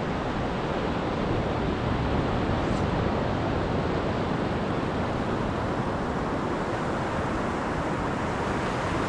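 Waves breaking in shallow surf, a steady wash of noise, with wind buffeting the microphone.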